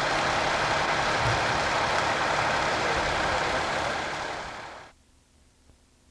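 Steady engine noise of idling heavy equipment. About four and a half seconds in it fades quickly to near silence.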